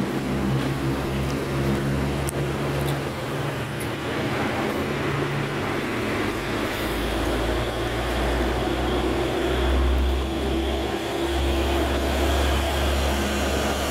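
Motor vehicle engine running close by, a steady low hum of road traffic; a deeper rumble sets in about six and a half seconds in.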